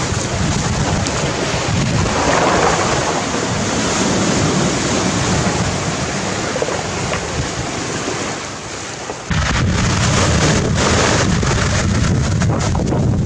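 Sea waves breaking and washing over a pebble beach, in repeated surges of surf noise. Wind buffets the microphone with a heavy low rumble that eases off about eight seconds in and returns suddenly a second later.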